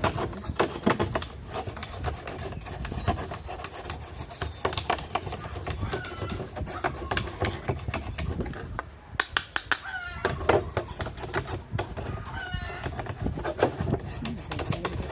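A toothbrush scrubbing water pump parts clean, a steady run of irregular scratchy brushing strokes.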